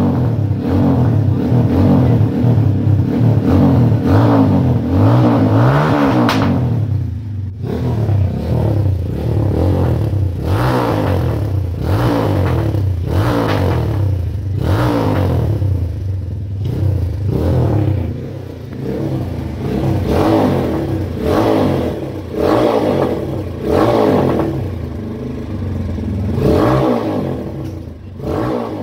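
Zongshen 250cc sport bike engine revved through an M4-replica aftermarket exhaust. One long rev climbs in pitch until about six seconds in, then the throttle is blipped over and over, about once a second.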